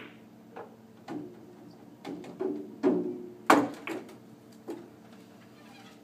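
A cue tip strikes the cue ball, followed by a run of sharp clicks and knocks from pool balls hitting each other and the table, the loudest about three and a half seconds in.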